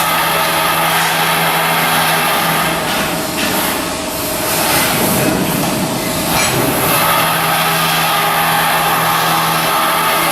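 Steady, loud machinery noise with a low hum.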